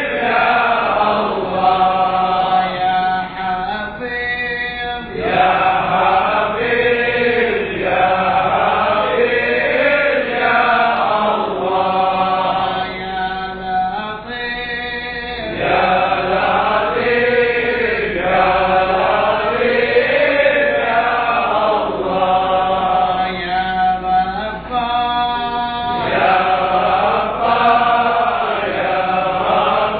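A gathering chanting Sufi dhikr together in unison, one short melodic phrase repeated over and over with the pitch rising and falling.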